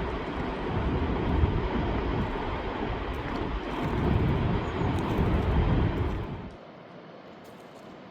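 Loud, steady rushing of a fast mountain river, with a deep rumble underneath, dropping suddenly to a faint hiss near the end.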